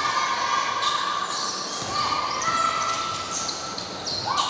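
Basketball game in a large gym: a ball bouncing on the hardwood court, with high, drawn-out voices calling out across the echoing hall.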